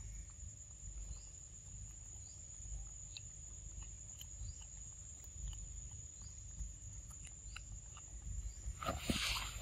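Outdoor ambience: a steady high-pitched insect drone over a low rumble, with faint scattered ticks and chirps and a brief rustle near the end.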